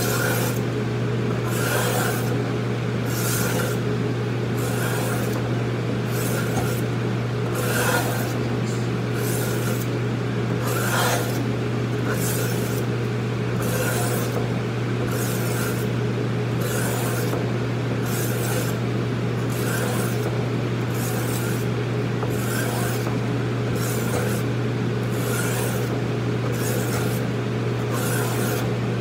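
Knife blade being sharpened on a multi oil stone: steel scraping along the oiled stone in rhythmic back-and-forth strokes, a little over one a second. A steady low hum runs underneath.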